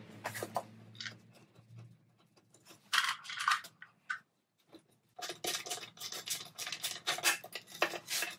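Gloved hands scraping, rubbing and tapping on an engine's sump and flange during fitting. There is a short scrape about three seconds in, then a quick, busy run of scratches and small clicks from about halfway. A faint low hum dies away in the first two seconds.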